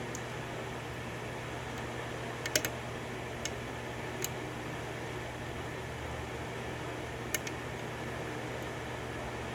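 A few small, sharp clicks of lock picks and a tension tool working in a pin tumbler lock: a quick cluster about two and a half seconds in, then single clicks a second and several seconds later, over a steady background hum.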